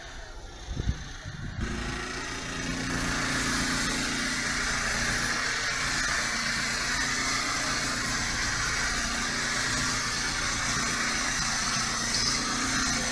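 Steady running of engine-driven concrete machinery, with an even rumble and a constant low hum. It comes in abruptly about a second and a half in, after a quieter start with a single thump.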